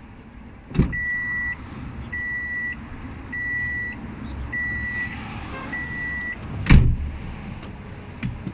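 A car's warning chime beeping five times, about a second apart, set off by a knock as the door opens; the chime stops and the car door shuts with a heavy thud, followed by a small click.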